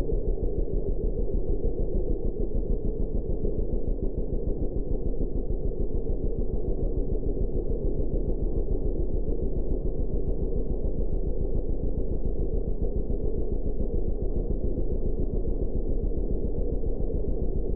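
Sport ATV engine running steadily while riding. It is heard as a muffled, low drone with a fast, even pulse.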